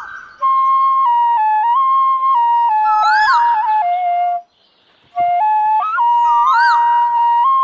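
Bansuri, the Indian bamboo flute, playing a slow melody of held notes with quick rising-and-falling flourishes twice. It breaks off for under a second about halfway through.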